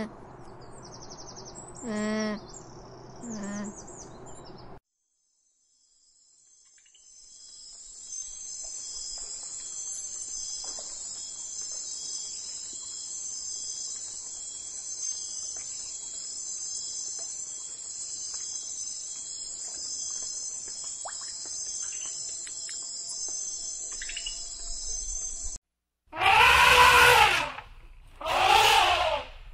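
Capybaras giving two or three short pitched calls, then a steady high chorus of insects for about twenty seconds, then two loud calls about a second long from an elephant near the end.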